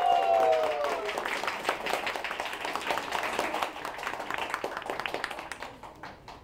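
A small audience applauding with hand claps, the clapping thinning out and dying away near the end.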